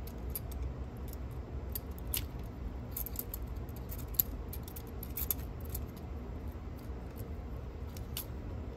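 Scattered light clicks and ticks of plastic and metal parts as a cassette deck's tape transport mechanism is handled and its two halves are pressed together. The sharpest click comes about four seconds in, over a steady low hum.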